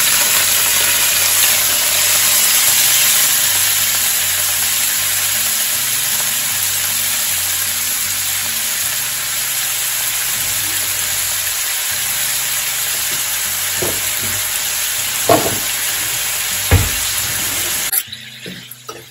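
Chopped shallots, garlic and green chillies sizzling loudly in hot sesame oil just after being tipped into the pan. The sizzle eases slowly, a spoon knocks against the pan a few times while stirring near the end, and the sizzle stops abruptly.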